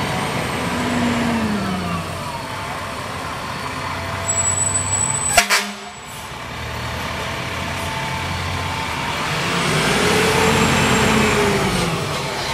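Fire engines' diesel engines running, with one driving past near the end as its engine sound rises and falls. About four seconds in, a second-long burst of crackling ends in a single sharp bang.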